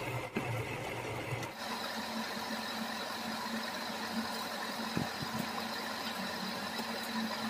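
A steady mechanical hum, with a few faint light clicks about five seconds in.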